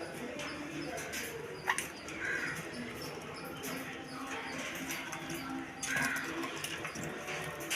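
Pet sun conure making short calls and chattering, with scattered small clicks.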